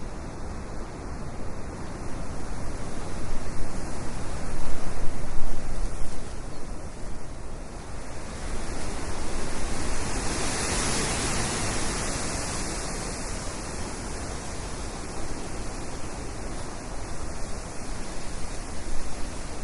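Ocean surf: a steady rushing wash of waves that swells and eases, with no music.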